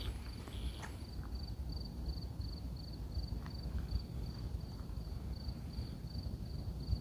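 A cricket chirping in a steady rhythm, about three short high chirps a second, over a low rumble.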